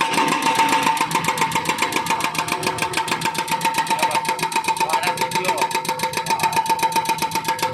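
Hydraulic breaker on a wheeled Volvo excavator hammering thick asphalt, a rapid even run of blows about ten a second with a steady high ringing tone over it.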